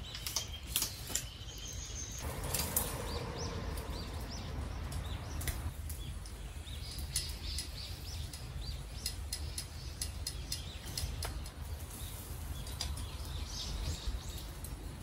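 Wild birds chirping and calling over a steady low rumble, with scattered sharp clicks throughout.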